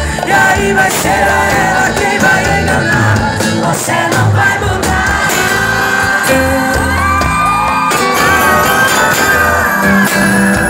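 Live sertanejo band playing with a woman singing lead into a microphone, as heard from within the crowd; fans shout and whoop over the music.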